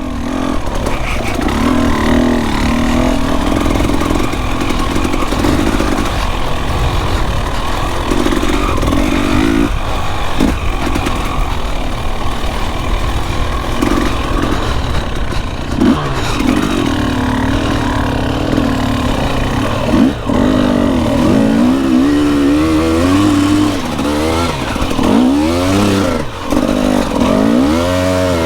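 Dirt bike engine running steadily at first, then revved up and down again and again through the second half as the bike is ridden through mud.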